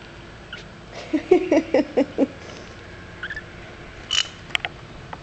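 Sixteen-day-old kittens mewing: a quick run of about six short calls about a second in, then a few fainter calls and clicks near the end.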